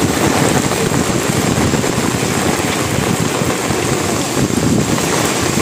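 Heavy rain pouring steadily onto paved pavement and street, a loud, even hiss, with wind gusting.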